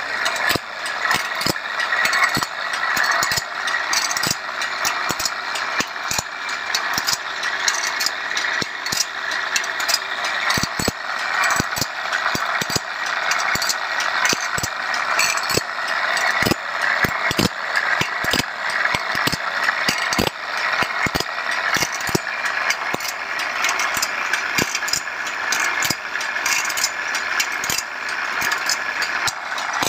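Bandsaw blade sharpening machine running, its abrasive wheel grinding the teeth of the blade with a steady grinding noise. Frequent sharp clicks and knocks come from the mechanism as it steps the blade along tooth by tooth.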